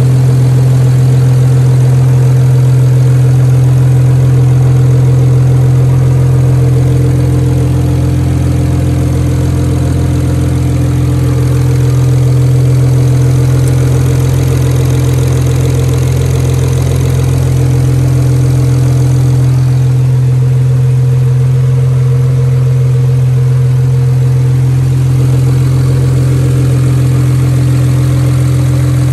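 BMW N54 inline-six, converted to a single turbo on an equal-length manifold with an open dump pipe, idling steadily.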